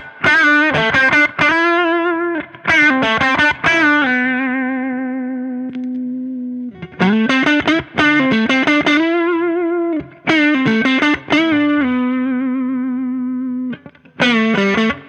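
Electric guitar played through a 1993 Fender Blues Deluxe tube combo amp, the amp working again after its repair for a low, distorted output. The guitar plays three bluesy phrases of quick notes, each ending in a long held note with vibrato that rings out.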